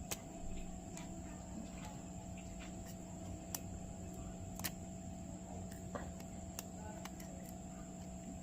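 Faint, scattered clicks and ticks of small repair tools working on a smartphone's internals, over a steady low electrical hum; the clicks fit flex cable connectors being pried loose.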